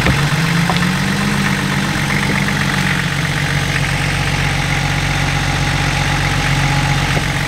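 Off-road vehicle's engine running at low revs. The revs rise slightly just after the start and settle back about three seconds in.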